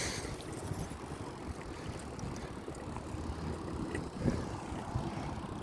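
Outdoor street background noise: a low, uneven rumble with no distinct events.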